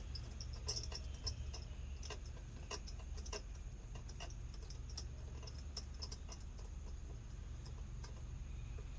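Faint scattered clicks and light taps of spark plugs being handled while anti-seize is put on their threads, over a low steady hum.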